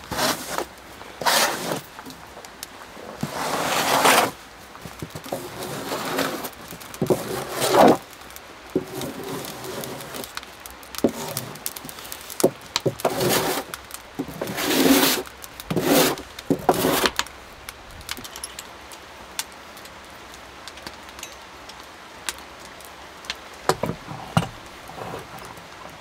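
Snow being scraped and swept off a wooden tabletop with a hand tool, in a string of swishing strokes for much of the time. Then a quieter stretch with a few sharp clicks and taps near the end.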